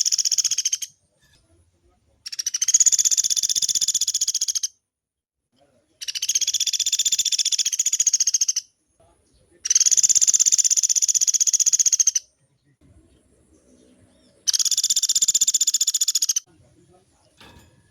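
Pelatuk beras (velvet-fronted nuthatch) singing long, rapid, high-pitched trills, each about two to two and a half seconds long. A trill is ending as the sound begins, and four more follow, separated by pauses of a second or so.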